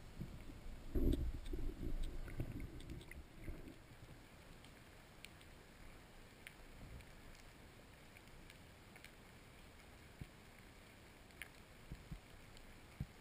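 Underwater ambience picked up by a diver's camera. Low rumbling bumps from the diver moving in the water come over the first few seconds, then a faint steady hiss with scattered soft clicks.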